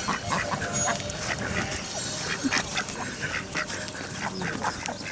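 Ducks quacking, many short calls in quick succession.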